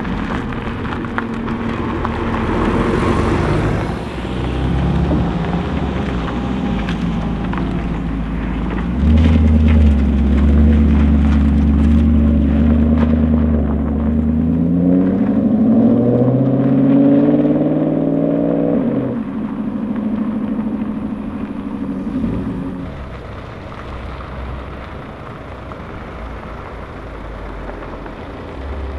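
Supercar engines running and pulling away: a loud, deep engine drone, then an engine note rising in pitch for several seconds in the middle as the car accelerates, cutting off sharply, followed by a quieter steady engine tone that fades.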